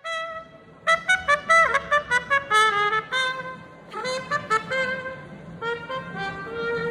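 A trumpet-like brass melody: a run of quick short notes, then longer held notes.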